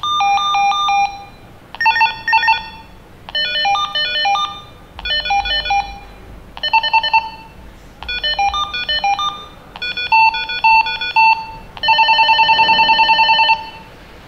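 Retevis RT33 walkie-talkie's speaker playing its call tones one after another as they are stepped through: about eight short electronic beep melodies, each around a second long with brief pauses between. The last is a fast trill.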